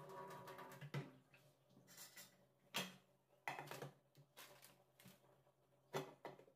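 Water pouring from an aluminium pressure cooker into a steel sink, stopping about a second in, then four sharp metallic knocks as the cooker and its half-covering lid are handled against the sink.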